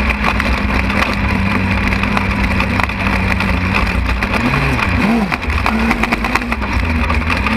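Lightning sprint car engine running at a steady speed, its pitch briefly dipping and swinging up and down a little past halfway before settling again, with a rough rattle and scattered sharp clicks over it.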